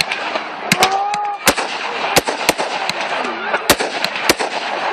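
Fireworks going off: a rapid string of sharp bangs, about nine in under five seconds, over a continuous hiss.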